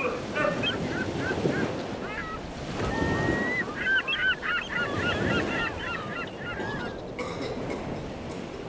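Seagulls calling with quick, repeated cries, thickest about four to seven seconds in, over the steady wash of sea waves.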